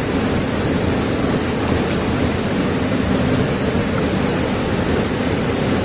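Steady rushing of flowing water from a river or waterfall, an even noise that holds at one level.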